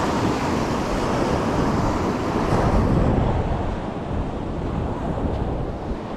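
Ocean surf breaking and washing up the sand, with wind buffeting the microphone. The hissing wash thins out about halfway through.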